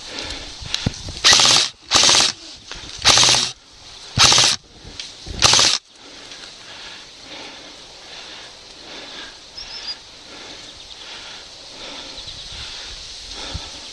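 Five short bursts of automatic airsoft gun fire in the first six seconds, each about half a second long. After them the field goes much quieter, with faint rustling.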